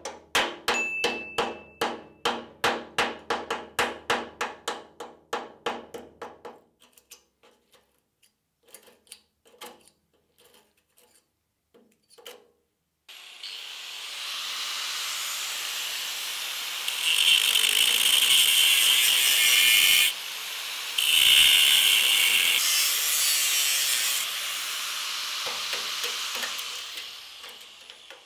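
A quick, even clicking beat for the first several seconds. Later a power tool grinds into the rusted steel corner of the chassis rear crossmember, running steadily for about fourteen seconds. It bites harder twice in the middle, with a brief stop between.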